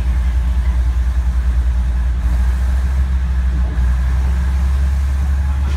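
Diesel railcar engine running at low speed with a deep, pulsing throb of about seven beats a second. The throb turns steadier a couple of seconds in.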